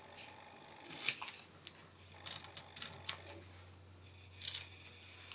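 Scissors snipping cardstock: several short, separate snips, the loudest about a second in.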